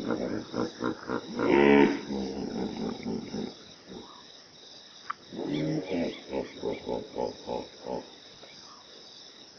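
Hippopotamus calling: a few short grunts, then one longer loud call about two seconds in. About five and a half seconds in comes a run of short rhythmic grunts, roughly three a second, lasting a few seconds.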